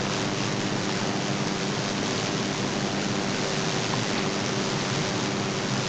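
Steady hiss of the recording's background noise, with a faint low hum underneath.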